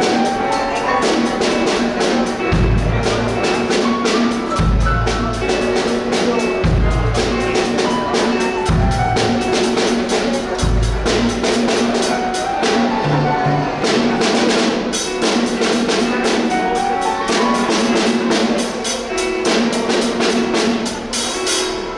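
A band playing live through a sound system: drums keep a quick, steady beat under a melodic line. Deep bass notes come about every two seconds through the first half and then drop out.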